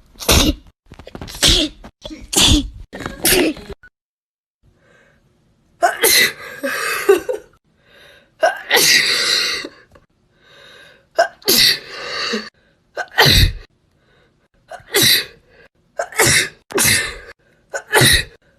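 Repeated sneezing from several people: about a dozen sneezes, most short and sharp, with two longer, drawn-out ones near the middle after a brief pause. These are uncontrollable sneezes set off by nasal swabbing.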